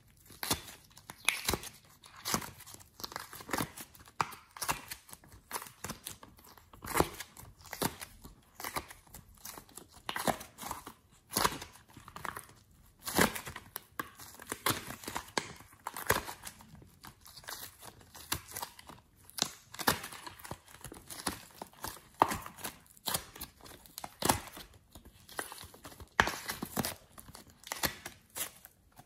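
Soft modelling clay squeezed, kneaded and pulled out of a plastic heart-shaped mold, giving irregular sticky crackles and clicks, a few each second.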